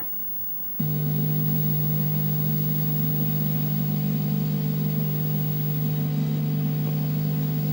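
Steady electrical hum from a CRT television's speaker during VHS tape playback. It starts abruptly about a second in and holds unchanged at an even pitch.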